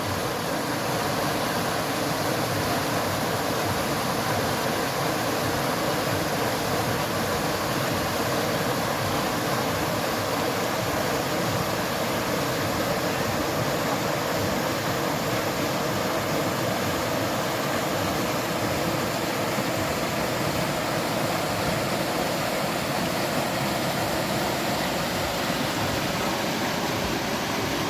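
Forest stream of clear water flowing over rocks, a steady, even rush.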